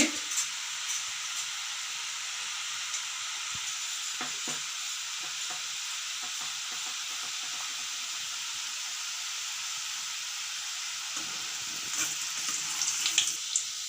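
Gram-flour and rice-flour murukku dough deep-frying in hot oil, giving a steady, even sizzle while it cooks before being turned. A few light clicks sound near the end.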